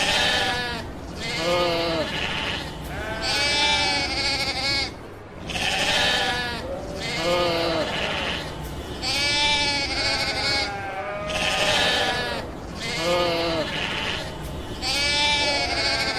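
Sheep bleating over and over, about one long quavering bleat every two seconds.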